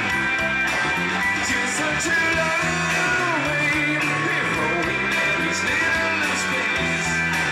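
Rock band playing live, with electric guitar prominent over bass and drums; a few notes bend in pitch.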